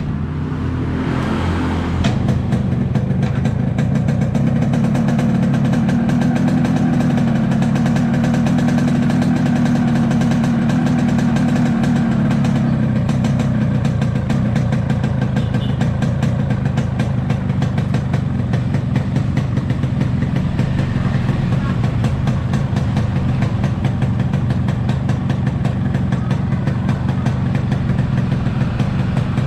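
Yamaha RX-King's two-stroke single-cylinder engine running after its block was refitted and tuned, revving a little higher for the first several seconds and then settling to a steady run.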